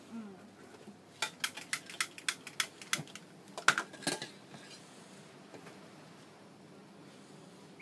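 A metal spoon clinks against a small aluminium saucepan as it stirs coconut milk. There is a quick run of clinks, about five a second, starting about a second in and stopping around four seconds in.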